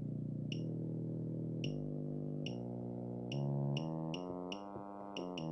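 Low-frequency test tone from a DDS signal generator played through a home-built 20-watt audio amplifier's speaker. It steps up in pitch in small jumps as the generator's frequency knob is turned through the low tens of hertz, sounding as a buzzy tone rich in overtones. A short high beep comes with each step.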